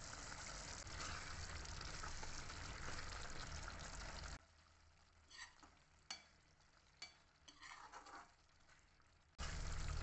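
Thick masala gravy sizzling and bubbling in a metal pan, a steady hiss. After about four seconds it goes quieter, and a spatula scrapes and taps against the pan a few times as the curry is stirred.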